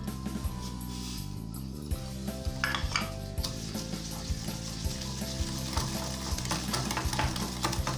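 A whisk beating egg and icing sugar in a bowl: quick, uneven clicks of the wires against the bowl with a wet swishing hiss that grows busier a few seconds in.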